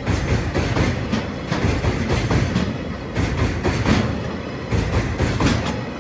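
Freight train of oil tank wagons rolling past, its wheels clacking over the rail joints in repeated pairs of beats, about one pair a second, over a steady rumble.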